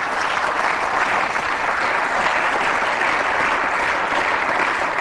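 Steady applause from the members of a parliamentary assembly in a large chamber, a dense even clapping that holds at one level.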